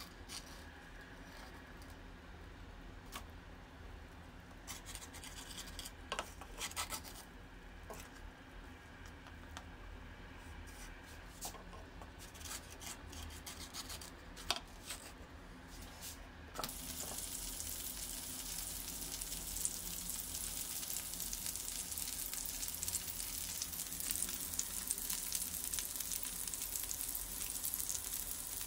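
Wooden spatula scraping and clicking against a frying pan while batter-filled bell pepper rings are turned, over a faint sizzle. About two-thirds of the way through, a loud, steady sizzle of the rings frying in hot oil takes over suddenly.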